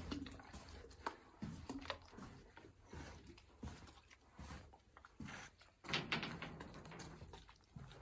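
Footsteps and scuffs on a concrete tunnel floor at an irregular walking pace, with a few sharper knocks, the loudest about six seconds in.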